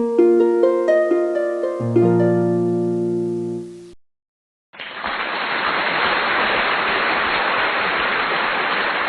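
A short harp-like intro jingle of plucked notes for about four seconds, which stops, then after a brief pause a steady, even hiss.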